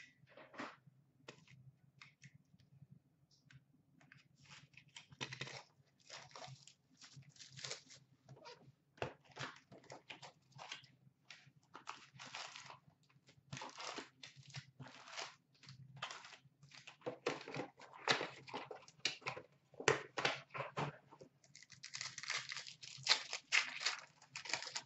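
Hands tearing open a sealed box of hockey card packs: a long run of short tearing and rustling strokes, coming thicker in the second half. Near the end, the card packs crinkle as they are handled.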